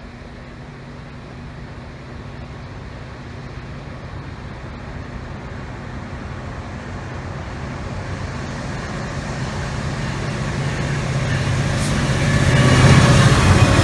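Diesel freight locomotives approaching on the rail line, their engine sound growing steadily louder until it is loudest near the end.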